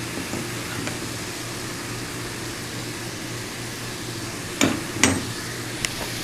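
Steady low kitchen hum, with three sharp clinks of kitchenware near the end, two close together and a lighter one a little later, as spoonfuls of chocolate powder are added to the hot chocolate.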